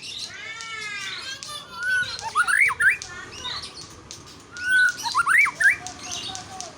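White-rumped shama singing: two loud phrases of fast, sweeping whistled notes about two and five seconds in, with sharp chip notes in between.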